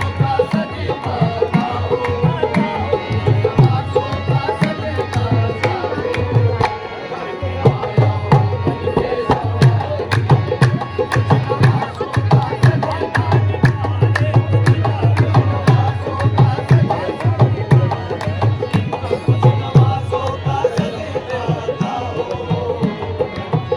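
Live qawwali music: hand drums played in a fast, dense rhythm with heavy low strokes, under singing voices.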